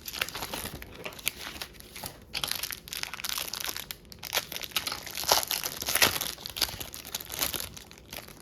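A trading-card pack wrapper being torn open and crinkled in the hands: a run of crackling rustles, sharpest about five and six seconds in.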